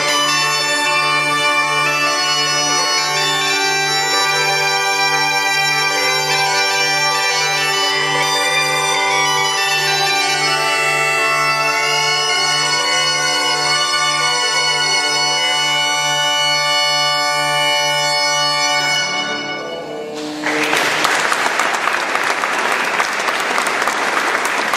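A zampogna a paro and a cornamusa bagpipe playing together, a melody over a low drone that wavers evenly, ending with a final held note about nineteen seconds in. The audience then applauds.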